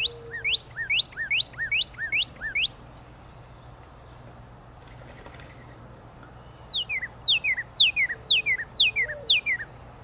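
Northern cardinal singing: a phrase of about six quick rising whistles, then about four seconds later a phrase of about eight clear down-slurred whistles.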